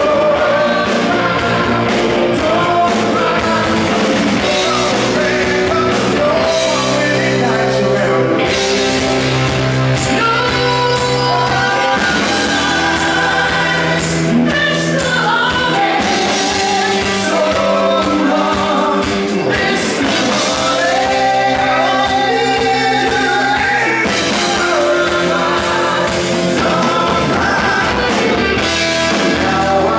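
Live rock band performing: a lead singer sings over electric guitar, bass guitar and drums, all amplified on stage.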